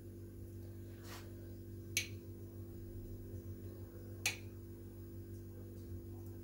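Three light clicks, about one, two and four seconds in, as pastries are handled on a metal baking tray, over a steady low hum.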